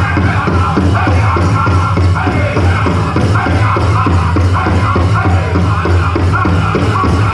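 Powwow drum group singing together over a steady, even beat struck on a large shared drum.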